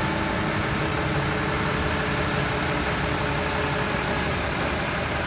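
TCM forklift engine running steadily at idle.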